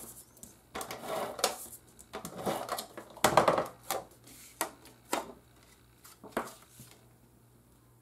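Hands handling cardstock and a tape runner on a tabletop: an irregular string of taps, clicks and paper rustles, the loudest a little over three seconds in, stopping about a second before the end.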